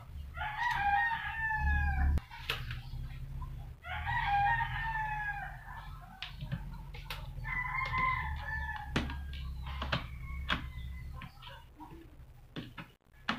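A rooster crowing three times, each crow lasting a second or two, the first two falling in pitch. A few sharp clicks come from a screwdriver turning a screw into an angle grinder's housing.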